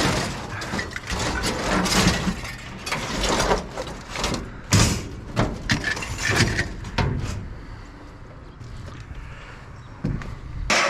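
Scrap metal clanking and clattering as pieces are handled and dropped, in a run of irregular knocks and crashes that dies down after about eight seconds.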